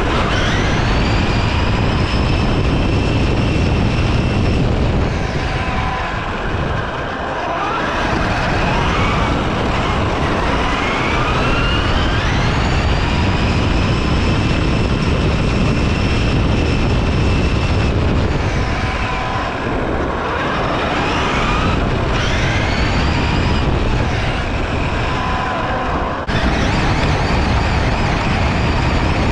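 Traxxas e-Revo electric RC monster truck driving: its motor and drivetrain give a high whine that rises in pitch each time it speeds up, happening several times, over a steady low rumble of wheels and wind.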